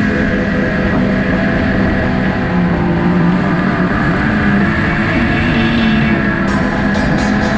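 Snowmobile engine running at a steady pitch under way. Near the end, music with a beat comes in.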